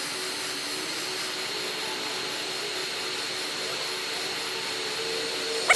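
Hot-air heat gun blowing steadily with a high whine over the fan's rush, warming the adhesive under the shattered iPad glass to loosen it.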